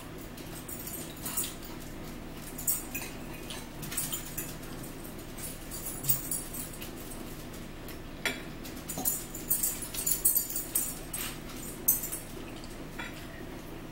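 Metal forks clinking and scraping against plates while two people eat, with chewing sounds; the clinks come thickest about nine to twelve seconds in.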